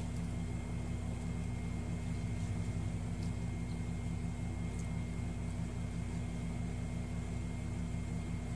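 Steady low mechanical hum with a thin high whine above it, unchanging throughout, and a few faint light clicks.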